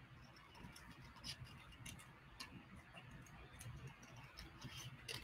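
Faint, irregular clicking snips of scissors cutting through thin cereal-box cardboard.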